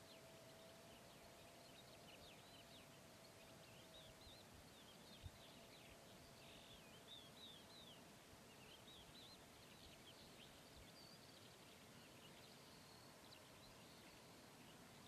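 Near silence: a faint steady hiss with many faint bird chirps, densest in the middle.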